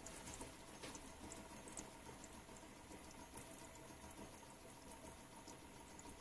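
Near silence: a water-cooled Warpfive Stirling engine running very quietly, heard only as a faint hiss with scattered light ticks.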